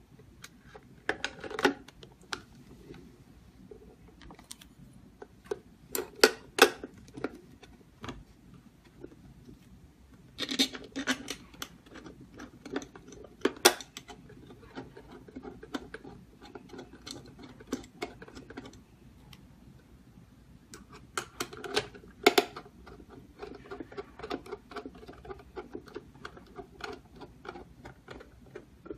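Metal parts of a keypad door lock being handled and fitted onto a door, giving scattered clicks, taps and clacks in short clusters, the loudest about a third of the way in and again about three quarters through.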